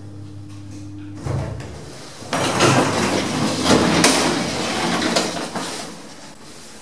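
Passenger lift humming steadily as it travels, stopping with a thump about a second in; the lift doors then slide open with a loud clattering rattle and a sharp clack.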